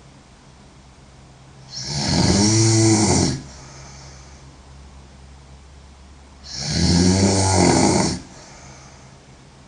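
A woman snoring: two loud snores about four and a half seconds apart, each lasting about a second and a half, with quieter breathing between them.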